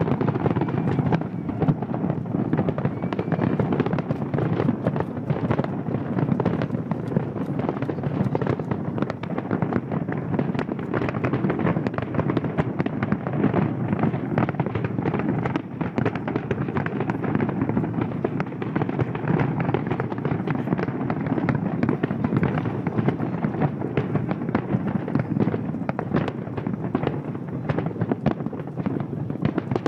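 A large aerial fireworks display: a dense, continuous barrage of shell bursts, bangs and crackles with no pause.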